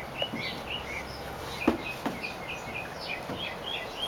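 Small birds chirping over and over, with a few sharp knocks from a toddler's shoes and hands against a plastic climbing wall; the loudest knock comes about one and a half seconds in.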